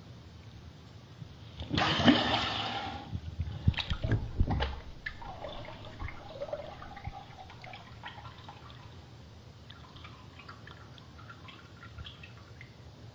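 Bath water splashing and sloshing: a loud rush of water about two seconds in, then a run of splashes and knocks, settling into soft gurgling and scattered drips.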